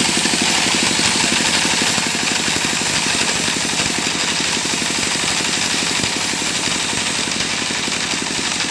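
Sawmill machine running steadily: an engine's fast, even pulsing under a broad hiss.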